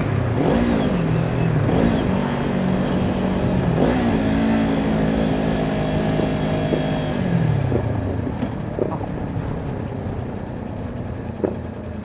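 Kawasaki Ninja 400 parallel-twin engine through an Akrapovic slip-on exhaust while riding. There are short quick rises and falls in revs, with the rider working on rev-matching his downshifts, then a steadier higher note. The revs drop away about eight seconds in.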